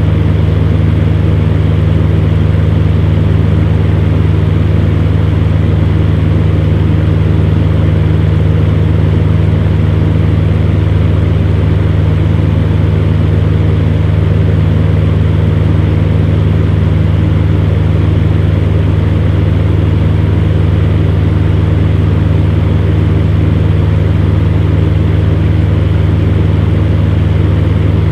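Fan running steadily: a constant low hum under an even rush of air, unchanging throughout.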